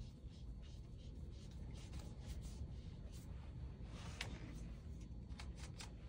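Faint rubbing and scattered small clicks of a rubber vacuum hose cuff being twisted onto the threaded end of a carpet-cleaning vacuum hose, with the clearest click about four seconds in.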